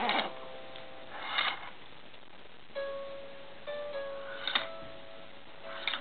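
Baby's musical crib mobile playing a slow tune of single plucked-sounding notes, clearer from about halfway in, with a few short soft noises over it.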